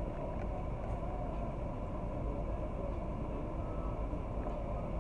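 Steady low rumble and hum inside a minivan's cabin with the engine running.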